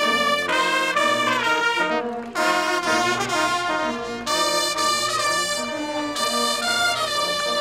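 A Bersaglieri fanfare band playing trumpets together in harmony, notes changing in steps, with a brief break about two seconds in.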